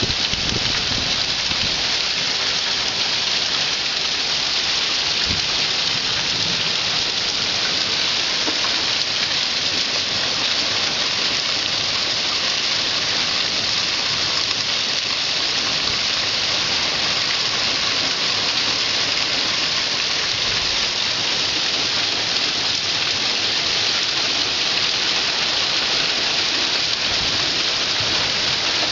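Heavy monsoon downpour: a loud, steady hiss of rain.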